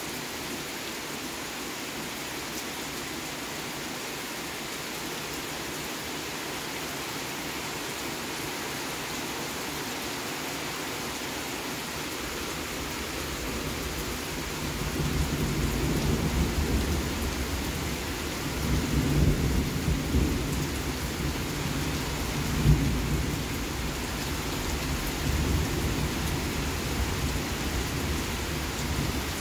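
Steady rain falling, with thunder rumbling in about halfway through and swelling in several low rolls, one sharper, louder clap about three-quarters of the way in.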